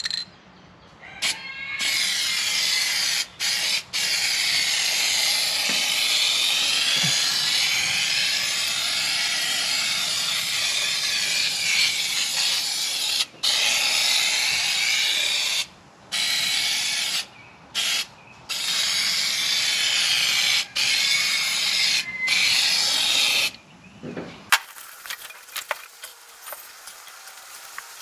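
Aerosol can of spray adhesive spraying in long hissing bursts with brief pauses for about twenty seconds. It stops a few seconds before the end, leaving faint handling clicks.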